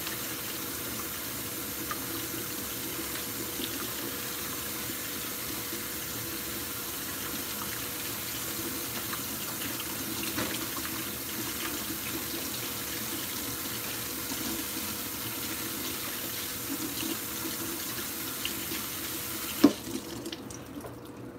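Kitchen tap running steadily into a sink, with a few light knocks of things being handled. The water stops suddenly near the end with a sharp knock.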